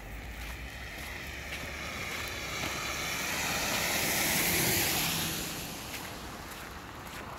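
A car passing on a wet, slushy road: tyre hiss swelling to a peak about four and a half seconds in, then fading away.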